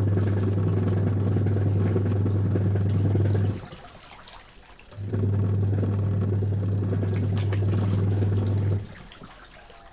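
Factory machine running in cycles: a deep hum with rumble comes on for about four seconds, cuts out for a second and a half, then runs again and stops near the end. Faint ticking and hiss carry on through the pauses.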